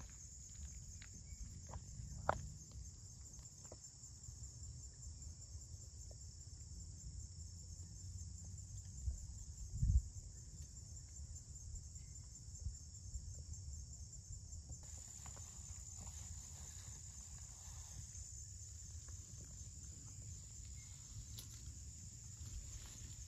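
Steady, high-pitched insect chorus with a fine pulsing trill, over a low rumble. A few short knocks cut through it, the loudest a soft thump about ten seconds in.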